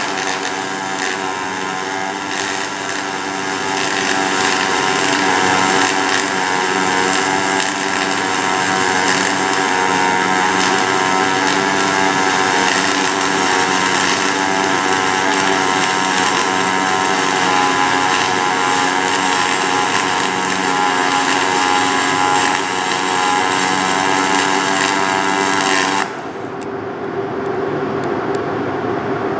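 Pulsed MIG welding arc on aluminum, a push-pull gun feeding 4043 wire in straight argon: a loud, steady, pitched buzz from the pulsing arc. It cuts off suddenly near the end as the bead is finished, leaving a lower steady hum.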